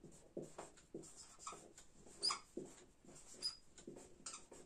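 Whiteboard marker squeaking and scratching across a whiteboard as letters are written: a string of short, uneven strokes with a couple of brief high squeaks.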